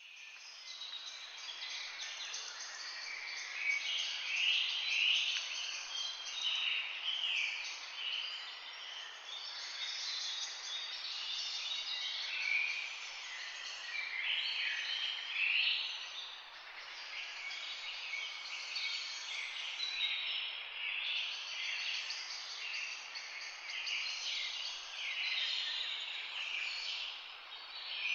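Flock of parrots chattering: many short calls overlapping without pause, shrill and high-pitched.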